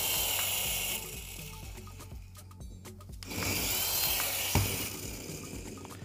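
Small electric motors of a toy dual-rotor RC helicopter whirring as the rotors spin, a high whine that dies away about a second in, then spins up again a little past the halfway point and winds down. There is one sharp click near the end.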